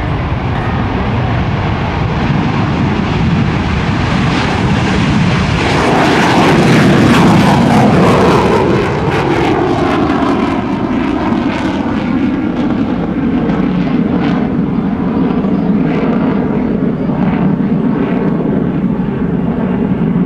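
McDonnell Douglas F-15C Eagle's twin turbofan engines at takeoff power as the jet rolls, lifts off and climbs steeply away. The noise swells to its loudest about six seconds in as the jet passes, then drops in pitch and carries on as it climbs.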